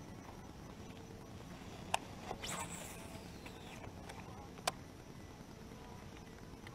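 Casting with a baitcasting rod and reel: a click, then a quick swish as the line pays off the spinning spool, fading out in a falling whir, and a single sharp click a couple of seconds later as the reel is engaged to retrieve.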